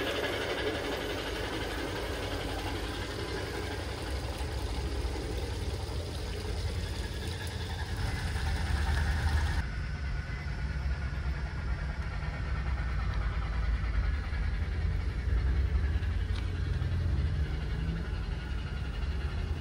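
Battery-powered Bachmann Spectrum 2-6-0 model steam locomotive running on garden track, heard as a steady low rumble from its Soundtraxx sound decoder's speaker and its wheels on the rails. The upper hiss drops away abruptly about halfway through, leaving mostly the low rumble.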